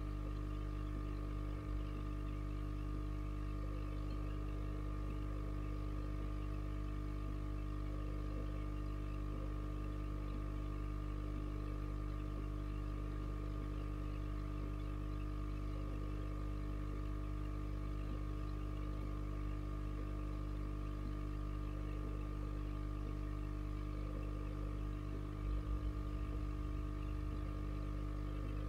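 Aquarium filter motor humming steadily: a constant low hum with a few steady higher tones. Two faint low bumps, about two seconds in and near the end.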